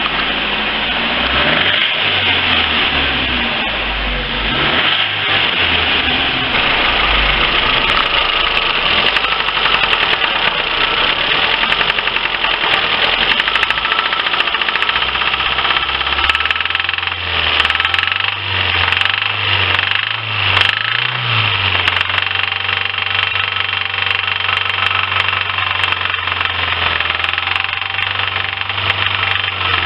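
Lifan car's four-cylinder petrol engine running steadily with a knock that a stethoscope places in the second and third cylinders; the engine is also smoking heavily.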